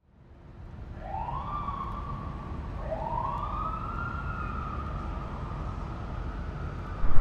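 A police-style siren wailing, fading in over a low rumble: two long wails, each rising quickly and then falling slowly. A short thump near the end.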